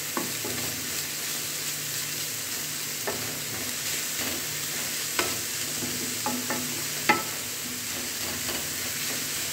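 Grated carrot sizzling in ghee in a frying pan, with a spatula stirring it and scraping the pan. A few sharp clicks of the spatula on the pan stand out, the loudest about seven seconds in.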